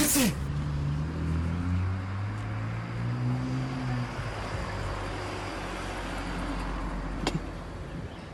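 A sudden loud burst of hiss, about half a second long, with a falling pitched sound in it, then a vehicle engine running steadily in street traffic, with one sharp click near the end.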